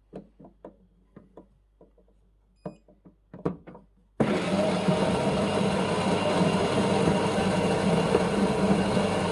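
A few light clicks and taps, then about four seconds in the Siemens EQ.300 fully automatic coffee machine's built-in grinder starts abruptly and grinds coffee beans with a loud, steady motor noise.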